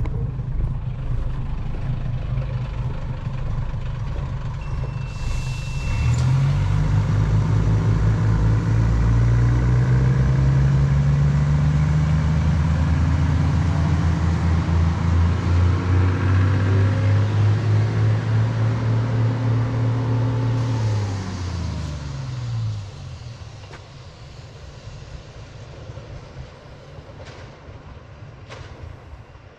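Diesel railcar engine opening up about six seconds in, running steadily under power, then winding down just after twenty seconds as the power comes off, leaving the quieter running noise of the moving train.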